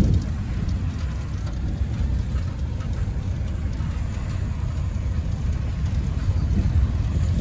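Steady low rumble of road and wind noise, heard from inside a moving vehicle.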